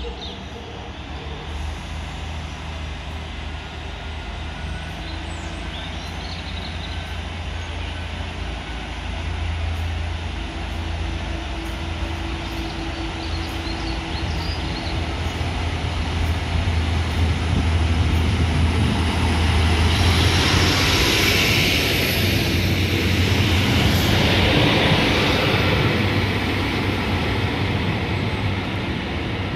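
Class 153 diesel railcar drawing along the platform with its underfloor diesel engine droning. It grows louder as it nears and passes, with wheel-on-rail rumble and a thin high squeal at the loudest point about twenty seconds in, then eases off as it moves away.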